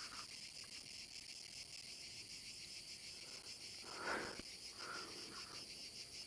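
Faint, steady high-pitched chirring of insects, pulsing evenly throughout, with a brief soft sound about four seconds in.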